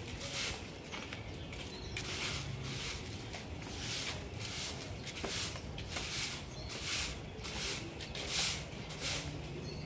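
Stick broom sweeping brick paving, in short scratchy brushing strokes that repeat about every half second.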